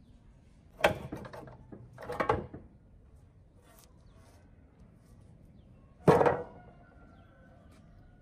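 Rusty metal blade guard of a cut-off saw being knocked and handled: a sharp clank about a second in, a scraping clatter around two seconds, and a louder clank near six seconds as it is set down on the table.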